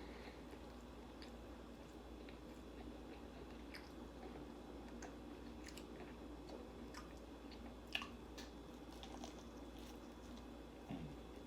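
A person chewing an egg and turkey sausage English muffin sandwich: faint mouth clicks scattered throughout, with one sharper click about eight seconds in, over a steady low hum.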